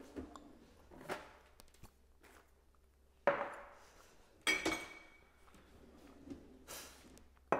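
A salt canister and a glass olive-oil bottle being picked up and handled on a kitchen countertop: a few separate sharp knocks and clunks, one with a short glassy ring.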